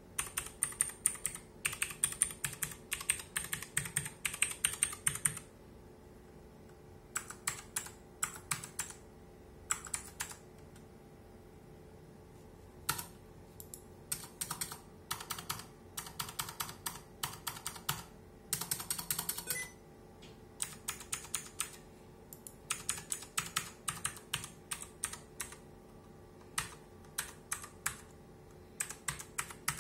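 Typing on a mechanical keyboard with Outemu Blue clicky switches: bursts of fast, sharp clicks, each keystroke a crisp high click, broken by pauses of a second or more.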